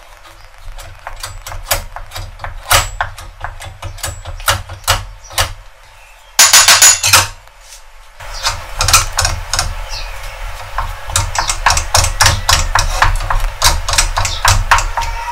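Wooden spoon knocking and scraping against a ceramic bowl and then a plate as thick choux pastry dough is worked, a quick run of irregular clicks and knocks. About six seconds in there is a short, louder clatter of crockery as the bowl is turned out onto the plate.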